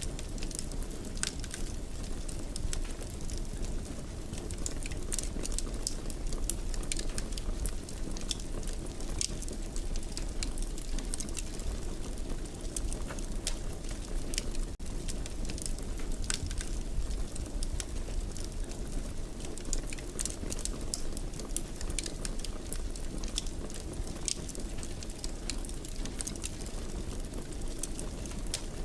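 Wood fire burning in a fireplace: a steady low rumble with frequent small crackles and pops scattered throughout.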